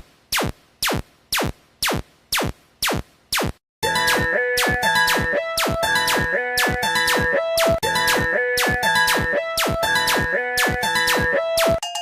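Electronic music: a bare clicking beat, about two and a half beats a second, then a synthesizer melody comes in over it about four seconds in.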